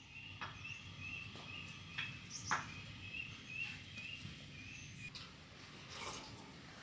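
Faint outdoor ambience with a small bird repeating a short, high, slightly rising chirp about twice a second, then falling silent about four seconds in, along with a few soft clicks and rustles.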